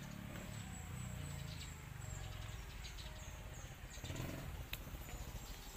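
A bird chirping faintly: a quick run of short, high, falling chirps in the first half, over a low outdoor rumble.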